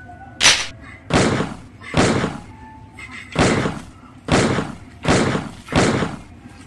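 Toy guns being fired, giving seven sharp gunshot-like bangs in irregular quick succession, each with a short fading tail.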